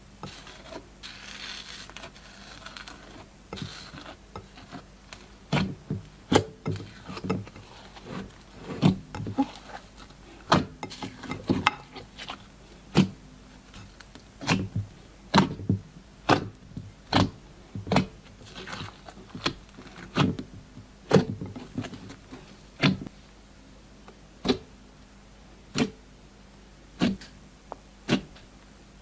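Glossy slime being squeezed and pressed by hand, giving soft squelching for the first few seconds and then a run of sharp sticky clicks and pops, about one or two a second.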